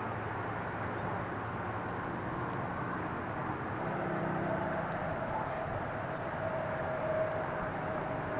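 Steady rumble of distant traffic rising from the valley below, with a steady whine joining about four seconds in.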